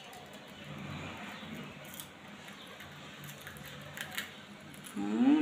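Rose-ringed parakeet nibbling a biscuit held in its beak: faint crackling and crunching with a few sharp clicks. Near the end comes a short, louder rising call.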